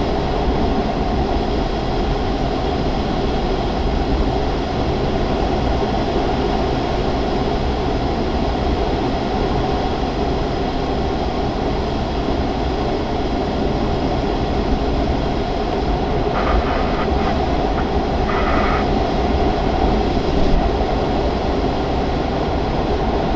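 Steady rushing airflow noise inside the cockpit of a Grob 103 glider in flight, with a few faint short sounds near the end.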